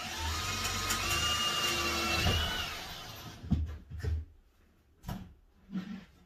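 Power drill running for about three seconds, its whine rising slightly just before it winds down, followed by a few light knocks.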